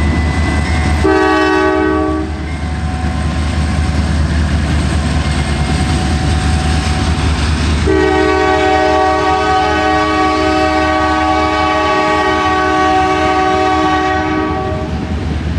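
Diesel locomotive air horn on a passing double-stack freight train: a short blast about a second in, then a long blast from about eight seconds in that lasts some seven seconds. Under the horn runs the steady low rumble of the train.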